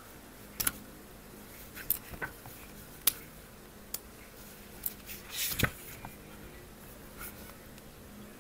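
Book-annotating handling sounds: a string of small, sharp clicks and taps from plastic gel pens and a clear plastic sticky tab being handled over a hardcover book. About five and a half seconds in comes a louder rustle and thump as the book's pages are turned.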